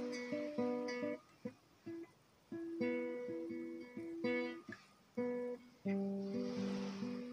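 Acoustic guitar played by hand: plucked notes and chords at an unhurried pace, thinning to a few single plucks about two seconds in, with a strummed chord about six seconds in.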